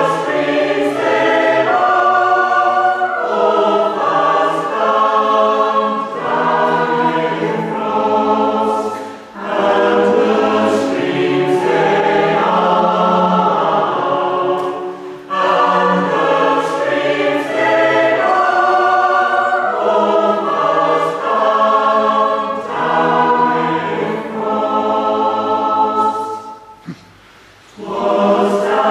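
Mixed choir singing a West Gallery carol in harmony, with a small string band that includes a cello playing along. The singing runs in held phrases with brief breaks, and near the end there is a short silence with a single click before the next phrase begins.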